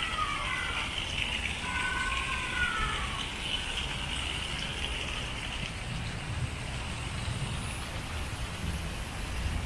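Fountain water jetting from elephant statues' trunks and splashing into a pool: a steady hiss that fades away about halfway through. A steady low rumble lies under it throughout.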